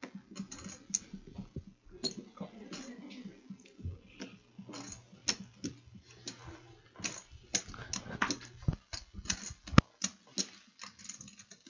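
An irregular run of small clicks and clacks, with one sharper, louder knock near the end.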